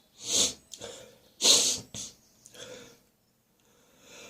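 A person with a head cold sniffing and breathing through a congested nose: two sharp, strong breaths about a second apart, then a few weaker ones.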